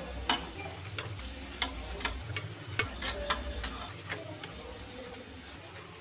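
A spatula clicking and scraping against a shallow metal pan as a paratha is pressed and turned while it cooks, with a steady sizzle underneath. The quick, irregular clicks stop about four seconds in.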